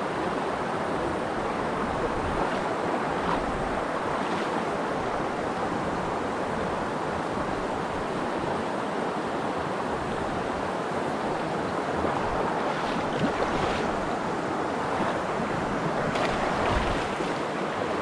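Steady rushing of a shallow mountain stream running over stones in a riffle, with cicadas calling in the background.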